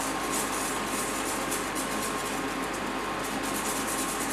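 Steady whir and hum of an induction cooktop's cooling fan, with a faint crackling sizzle from the paratha on the hot tawa as oil is spread over it.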